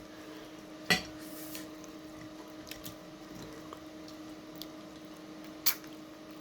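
Cutlery clinking against a plate twice, sharply, about a second in and near the end, with faint small clicks of eating between, over a steady low hum.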